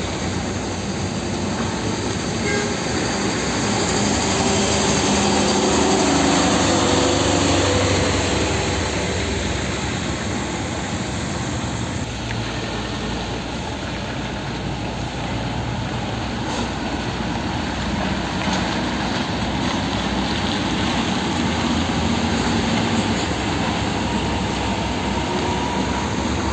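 Heavy diesel trucks driving slowly past on wet asphalt: a steady low engine drone mixed with tyre noise, swelling louder about five to eight seconds in.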